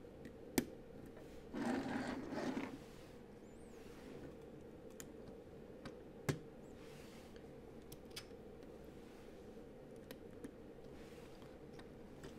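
LEGO pieces being handled and pressed together: scattered small plastic clicks, with two sharper snaps, and a short scraping rustle about two seconds in.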